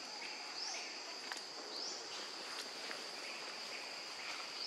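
Insects droning steadily at a high pitch, with a short rising call repeating about once a second.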